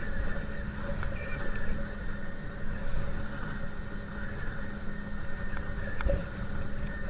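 Boat engine running steadily, a constant drone over rough low rumble of wind and water.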